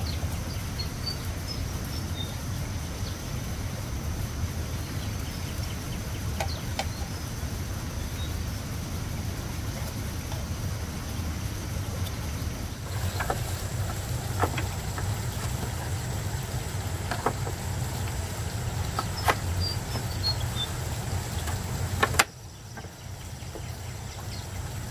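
Steady low rumble of outdoor background noise, with a handful of light clicks and knocks from hand tools on bamboo being marked out. A sharper click comes just before the rumble drops away near the end.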